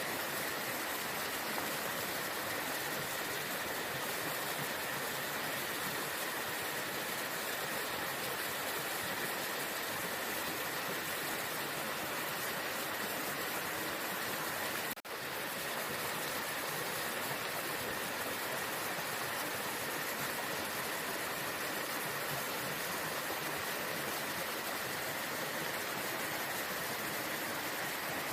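Waterfall: a steady, dense rush of falling water. The sound cuts out for a split second about halfway through.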